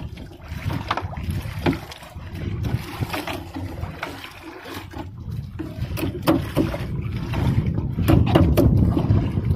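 Wet fishing net being hauled by hand into a small wooden outrigger boat: scattered clicks and knocks of the net against the gunwale over a low rumble of wind and sea, which grows louder near the end.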